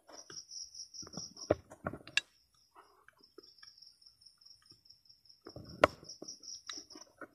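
Small taps and clicks of a soldering iron against the underside of a CRT TV's circuit board as a resistor is soldered in, the sharpest about six seconds in. Behind them runs a steady, high, pulsing trill, which breaks off for about a second and a half around the two-second mark.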